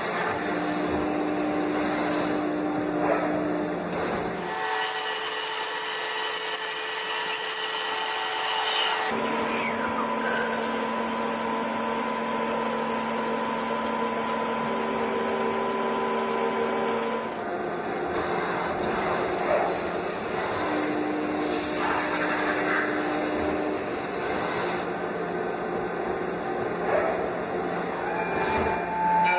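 Mazak Integrex 200 CNC mill-turn center machining a round metal workpiece: a steady whine from the spindle with the hiss of cutting. The pitch and mix of tones change abruptly three times.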